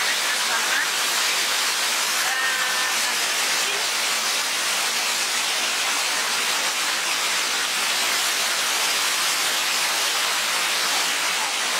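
Lata Iskandar waterfall: water cascading down steep rock slabs, a steady, even rushing hiss.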